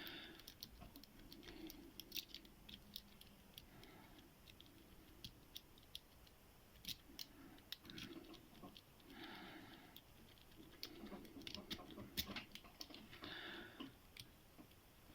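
Faint, irregular small clicks and light scraping from a lock pick and tension wrench working the pins of a small Qualtec padlock, which stays locked.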